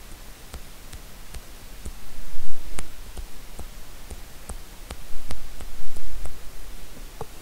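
Scattered faint clicks and light rustling over a low steady hum, louder for a moment about two seconds in and again around five to six seconds in.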